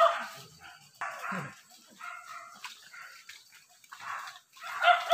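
Hunting dog barking and yipping in short bursts, several times with pauses between.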